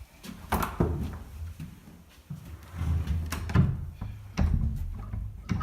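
A few sharp knocks and thuds, like a door or wooden fittings being bumped, over uneven low bumping and rumble.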